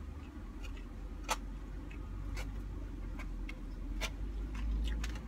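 Eating sounds: chewing, with scattered sharp clicks of a plastic utensil against a takeout food container, over a low steady rumble.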